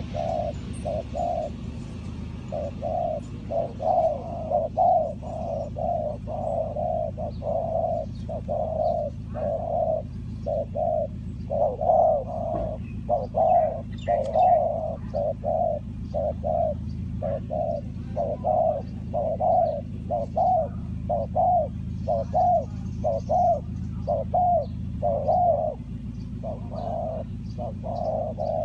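Spotted doves cooing: a continuous string of soft, low coo notes, about two a second, with faint chirps of small birds.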